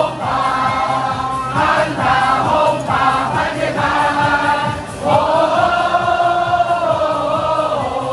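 A baseball stadium crowd chanting a cheer song in unison, in short sung phrases, then one long held note from about five seconds in.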